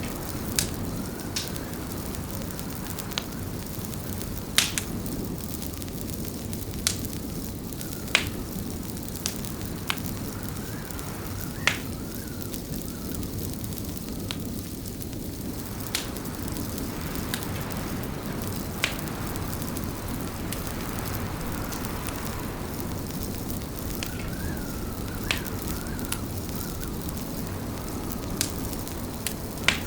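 Fireplace fire crackling: irregular sharp pops, roughly one every two seconds, over a steady low rumble.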